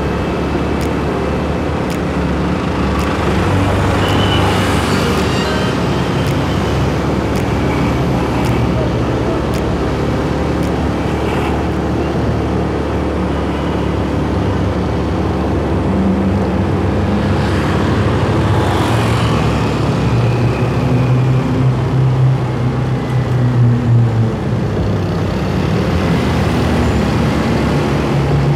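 Motorcycle riding through town traffic: its engine hums steadily under a constant rush of wind and road noise, with other vehicles passing close by.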